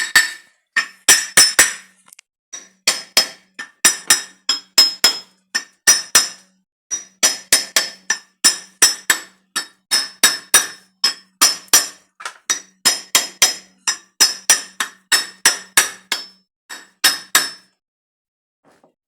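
Hammer tapping on metal autorickshaw engine parts, several quick ringing clinks a second in short runs with brief pauses, stopping near the end. It is a hard hammer used in place of a soft fibre mallet, so the blows ring sharply.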